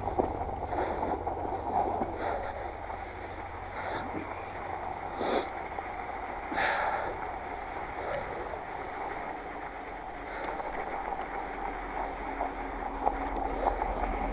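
Fat bike's wide tyres rolling over snow and a shovelled sidewalk, a steady crunching rumble with the bike rattling. A couple of sharp knocks come a little past the middle.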